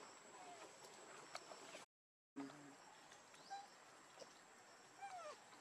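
Near silence: faint outdoor ambience with a few soft, short chirping calls and light ticks. The sound drops out completely for about half a second roughly two seconds in.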